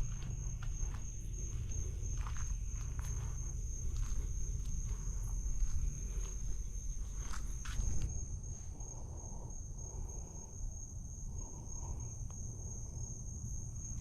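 Crickets trilling steadily in a high, unbroken tone, with scattered clicks and light steps over roughly the first half.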